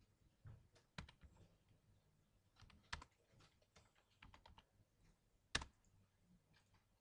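Faint, irregular typing on a computer keyboard: scattered keystrokes with short pauses between them, and one louder click near the end.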